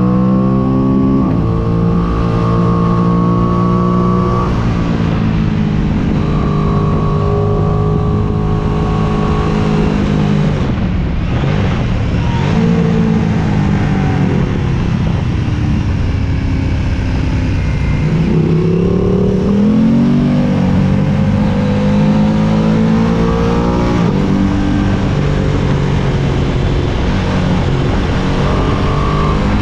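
Aprilia sport bike's engine under hard riding on a racetrack, revs climbing and dropping with repeated gear changes, heard from a camera mounted on the bike with wind rushing over the microphone.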